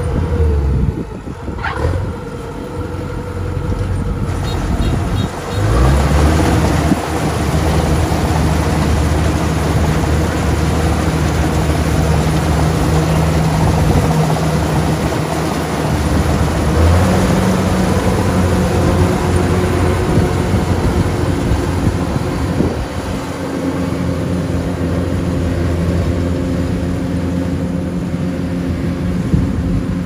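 Kubota DC-105X rice combine harvester running while it harvests: a loud, steady drone of its diesel engine and threshing machinery, shifting in pitch a few times.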